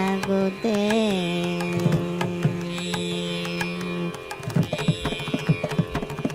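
Indian classical-style music: one long held melodic note that slides up and settles, then from about four seconds in a run of quick drum strokes.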